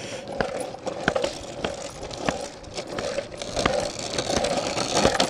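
Light metallic clinks in a walking rhythm, about three every two seconds: a leashed Siberian husky's harness and tags jingling as it trots. A steady background hum runs underneath.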